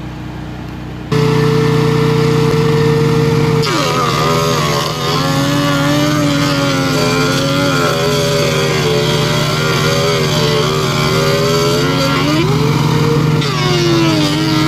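DeWalt benchtop thickness planer running loudly, starting abruptly about a second in. Its motor pitch drops and wavers as a cedar picket is fed through and planed. Near the end the pitch rises briefly and then drops again under load.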